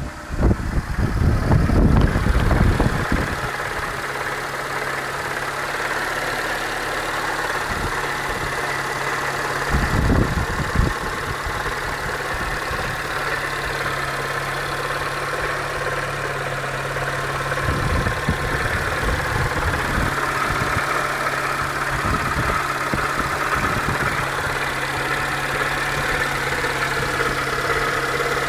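2004 Peugeot 307 1.4L engine idling steadily with a knock in time with the revs. The knock persists with a new timing belt kit fitted and the crankshaft pulley removed. A loud low rumble covers the first few seconds, and short low bumps come about ten and eighteen seconds in.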